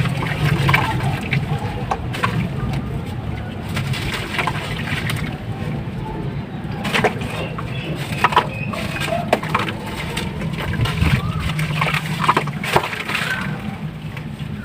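Slabs of ash or sand-cement mix crumbling and cracking in water, with scattered crackles, clicks and small splashes over a steady low hum.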